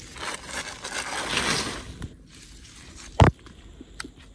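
Dry grass and a sheet rustling and crackling as they are handled, followed by a single sharp knock about three seconds in.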